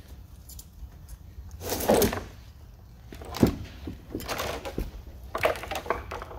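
A tall, heavy industrial battery cell being walked upright across a concrete floor, tipped and swung from corner to corner: a few scrapes and knocks, the loudest a long scrape about two seconds in and a sharp knock about three and a half seconds in.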